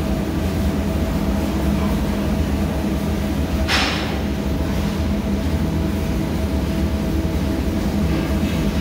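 Steady, loud drone of ship's engine-room machinery with a low hum, and a short hiss about four seconds in.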